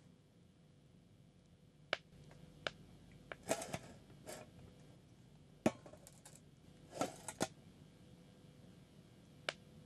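Quiet room tone with a faint steady hum, broken by a handful of scattered light clicks and taps, the loudest about two seconds in and just before six seconds in.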